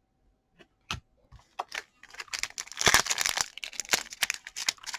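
A few small clicks, then the plastic wrapper of a trading card pack crinkling and tearing as it is ripped open, a dense crinkle from about two seconds in.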